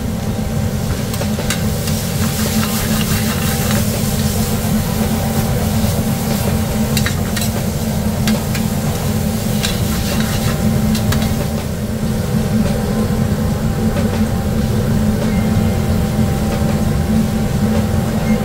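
Shrimp and vegetables sizzling in a sauté pan over a gas burner, with metal tongs clicking against the pan as the food is tossed, over a steady low hum.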